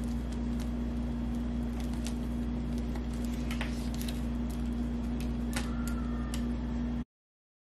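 Loose potting soil crackling and pattering onto brown paper as fingers crumble it from a snake plant's root ball: a few scattered light crackles over a steady low hum. The sound cuts off abruptly near the end.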